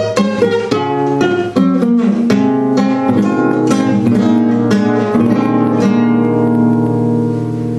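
Nylon-string classical guitar played solo: a quick run of plucked notes for about the first two seconds, then chords and bass notes ringing on.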